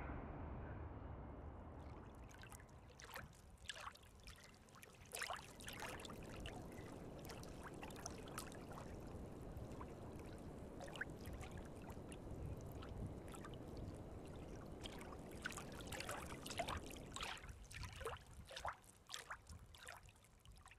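Water trickling and splashing, with many small plinking drips scattered through a low, steady wash.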